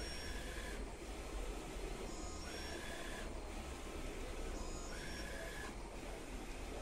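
UV flatbed printer printing on pens: the print-head carriage makes repeated passes over a steady machine hum. A pass comes about every two and a half seconds, each with a brief steady tone.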